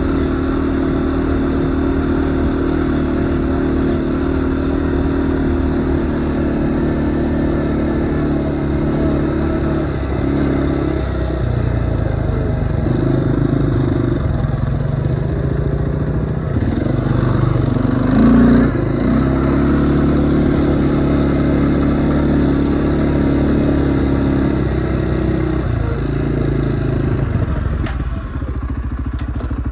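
CFMoto off-road vehicle's engine running while riding, steady for the first third, then its pitch wavering and shifting in the middle as the speed changes before settling again.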